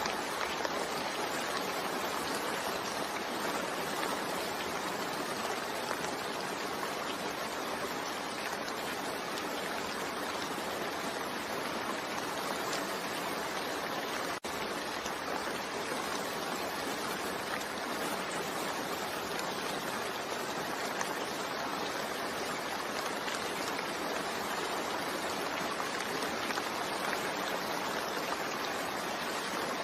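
Steady, even rain with no distinct drops standing out, broken by a momentary dip about halfway through.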